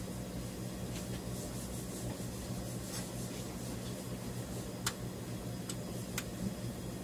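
Workshop ambience: a steady low mechanical hum with a few scattered light clicks and taps, the sharpest about five seconds in.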